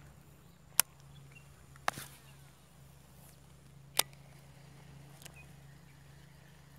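Four short, sharp clicks, a second or so apart, from a baitcasting reel being handled on a fishing rod, over a faint steady low hum.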